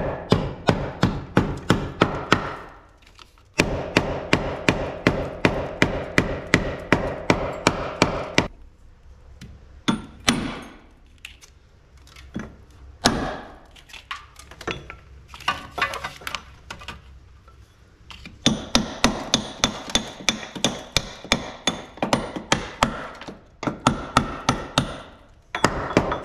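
Hammer striking the rusty steel rear chassis of a Toyota Hilux, knocking off rust scale and flaky paint. It comes in quick, even runs of about four strikes a second, with a stretch of slower, scattered blows in the middle.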